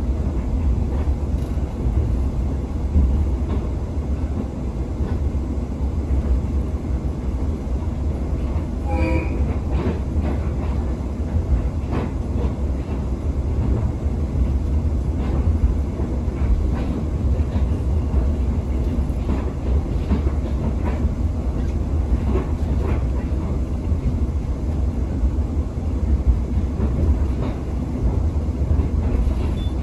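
Tsugaru Railway stove train's passenger carriage running along the line, heard from inside: a steady low rumble with irregular clicks of the wheels on the rails. A brief tone sounds about nine seconds in.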